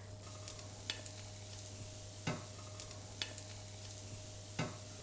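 A frying pan sizzling faintly, with a few sharp pops.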